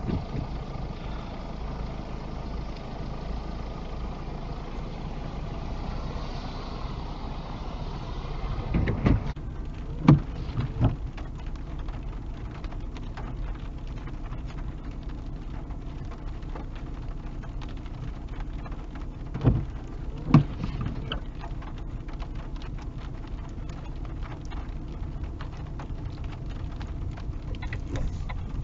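Car engine and road noise heard inside the cabin while the car creeps along at walking pace, a steady low hum. It is broken by a few dull thumps, three close together about a third of the way in and two more about two-thirds of the way in.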